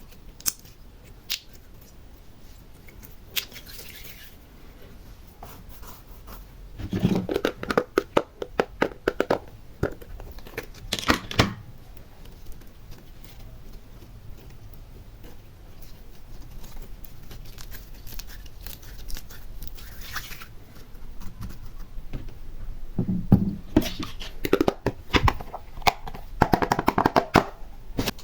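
Slime being handled and mixed by hand: sticky crackling and popping in bursts, a dense run about seven seconds in, another about eleven seconds in, and a longer stretch of crackling in the last five seconds, with scattered single pops between.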